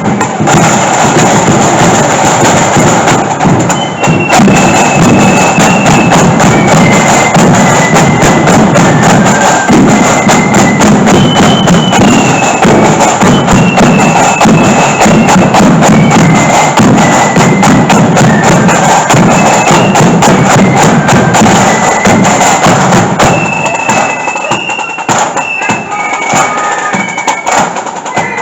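Marching flute band playing a tune: flutes carry a high melody over snare and bass drum strokes. The band grows quieter over the last few seconds.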